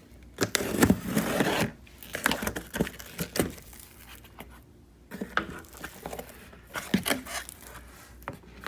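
Cardboard shipping box being cut and opened by hand: irregular scraping, tearing and rustling of tape and cardboard, with a few light knocks.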